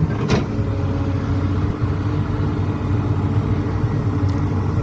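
Excavator's diesel engine running steadily as it loads soil, with one short knock shortly after the start.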